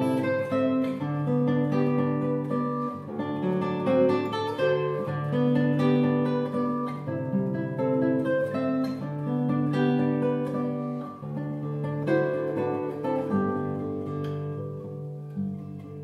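Solo nylon-string classical guitar, fingerpicked, playing a quick melody over held bass notes.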